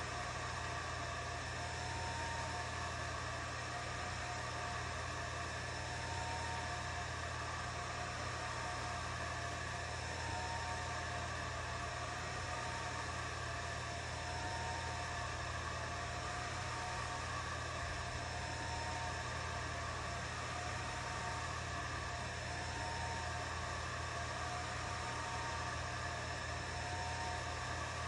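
Atomstack A10 Pro laser engraver running an engraving job: a steady fan hum, with a faint motor whine that rises and falls about every one and a half to two seconds as the laser head sweeps back and forth.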